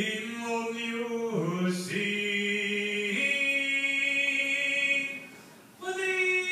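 Voices singing long held notes without accompaniment, the pitch moving in steps from note to note; a short break near the end, then a higher note is held.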